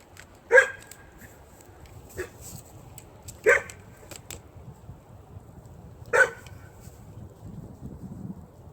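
A dog barking three times, single barks about three seconds apart, with a fainter one between the first two.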